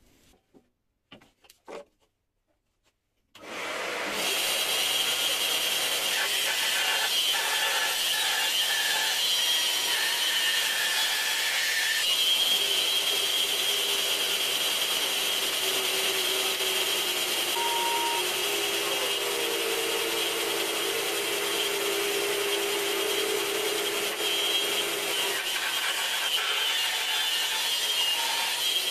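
Bandsaw starting up about three and a half seconds in, after a few faint knocks of wood being handled, then running steadily as it cuts cherry wood, with a lower tone joining for several seconds midway while the blade is under load.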